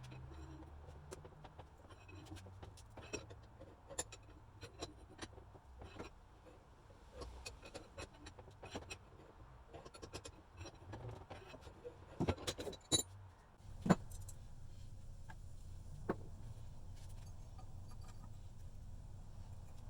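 Scattered light metal clinks and taps of parts and tools being handled during a vise restoration, with a cluster of sharper knocks about twelve to fourteen seconds in and one more a little after sixteen seconds, over a low steady hum.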